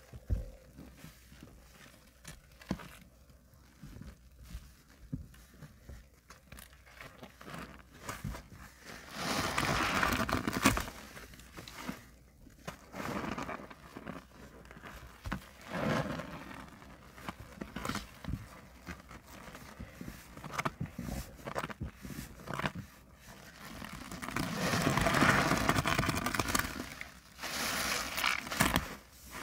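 Gloved hands squeezing and pressing soap-paste-loaded sponges in sudsy water: wet squelching with a constant crackle of foam bubbles. Two long, louder squeezes come about a third of the way in and again about five seconds from the end, with shorter presses between.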